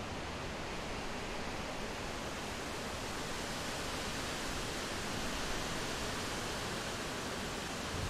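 Steady, even rushing hiss with no distinct events.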